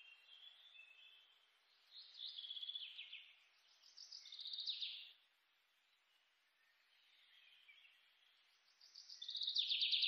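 Bird song: phrases of rapid chirping trills and short falling whistles, coming in three bursts, the loudest near the end.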